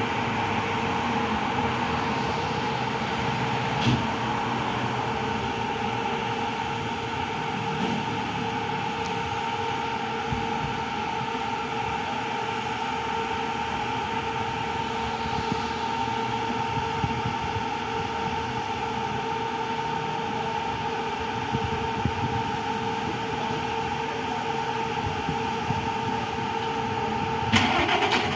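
A motor vehicle's engine idling with a steady hum. Just before the end a sudden, louder rush of noise cuts in.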